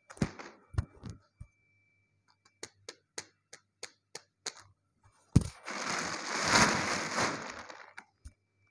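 A few handling knocks, then a run of light taps about three a second, then a sharp knock and a large clear plastic bag crinkling loudly for about two and a half seconds near the end.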